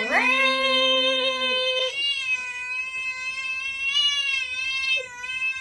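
A cat yowling in one long drawn-out cry that rises at the start, then holds with slight wavers in pitch, and is cut off abruptly near the end.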